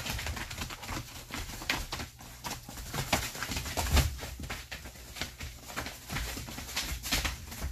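Jindo dogs play-fighting on a plastic tarp floor: irregular scuffling of paws and rustling of the tarp, with scattered clicks and knocks.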